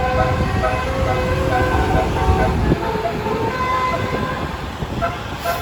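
Tour bus's basuri telolet horn sounding a string of short musical tones over the low rumble of the bus, which eases off about three seconds in, with voices in the background.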